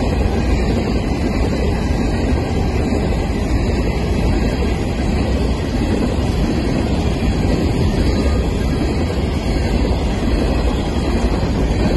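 BNSF coal train's coal hopper cars rolling past, a steady noise of steel wheels on the rail with no break or change.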